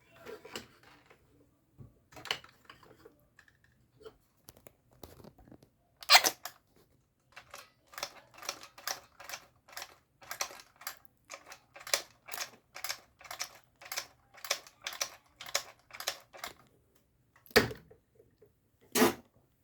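A run of sharp clicks and rustles from a hard plastic action figure being handled. The clicks come about twice a second for several seconds, with a few louder knocks.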